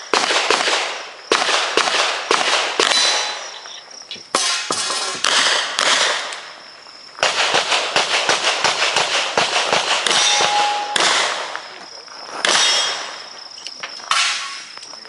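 Smith & Wesson 610 revolver firing strings of shots, several a second. Each crack trails a short echo, with brief pauses between strings.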